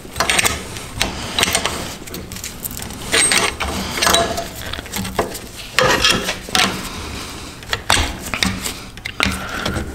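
A flat-bladed tool prying and scraping at a front strut's rubber bump stop and the steel parts around it, working it loose along the shaft: irregular metal clicks and scrapes.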